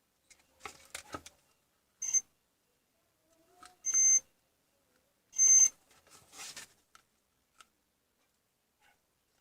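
Three short, high electronic beeps about two seconds, four seconds and five and a half seconds in, with soft clicks and scraping in between.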